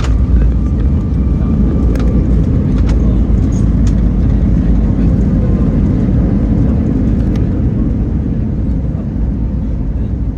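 Airbus A319 airliner heard from the cabin: a loud, steady low rumble of the aircraft on its landing run, with a sharp knock right at the start and a few light clicks and rattles.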